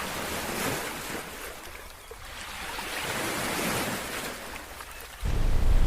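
Ocean surf with wind: a steady wash of waves that swells and eases, then, near the end, a sudden louder and deeper rumble.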